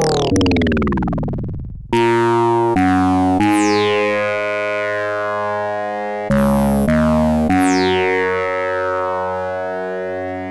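Digital synthesizer tones made by vector phaseshaping, a phase-distortion oscillator. A falling pitch sweep comes first, then a run of held notes whose bright overtones slide downward after each new note. The notes change about two seconds in and again around six to seven seconds.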